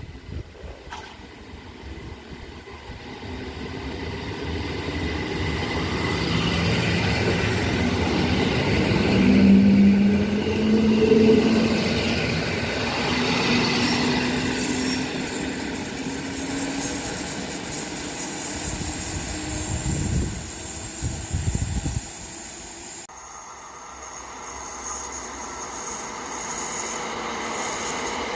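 EN57 electric multiple unit passing on the rails: wheel and motor noise swells to its loudest about a third of the way through, with a low steady hum, then dies away. Just past two-thirds in, another EN57 unit starts to approach and grows louder.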